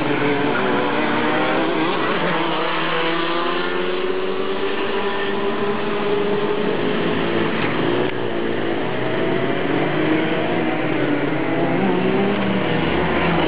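Several go-kart engines running at once, their pitch rising and falling as the karts rev up and back off around the circuit.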